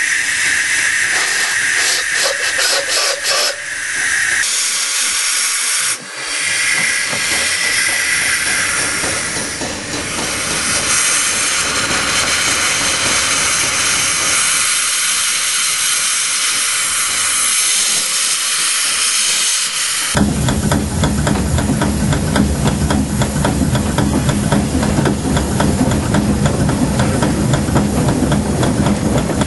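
Two-foot narrow-gauge steam locomotive hissing loudly as steam escapes from around its cylinders. About twenty seconds in the sound changes abruptly to a louder, low rumble with a fast, even pulsing, heard from inside the locomotive's cab.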